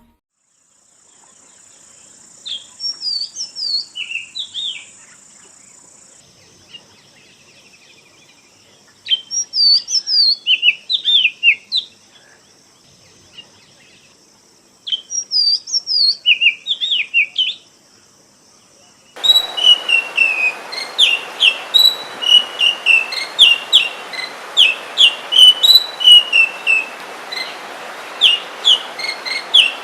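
Oriental magpie-robin (kacer) singing: three separate bursts of quick, sliding whistled notes with pauses between them, then, about two thirds of the way in, a louder, unbroken run of rapid repeated notes over a steady hiss.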